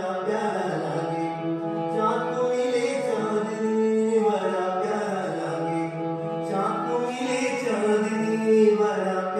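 Devotional bhajan with a solo singer holding long, gliding notes over instrumental accompaniment.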